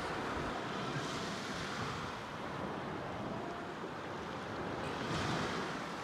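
Sea waves washing onto a sandy beach, mixed with wind: a steady wash of noise that swells a little about five seconds in.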